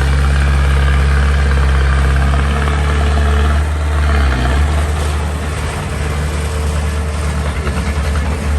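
A small bulldozer's diesel engine running steadily, with a low, even hum. The engine note changes about four and a half seconds in.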